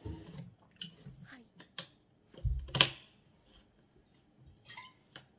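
Plastic water bottle being handled and drunk from: scattered clicks and crackles of thin plastic with swallowing, and one louder crackle about three seconds in.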